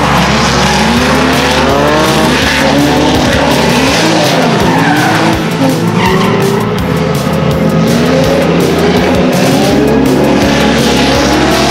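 Drift car on track, its engine pitch rising and falling again and again as the throttle is worked through the drift, over the hiss of skidding tires.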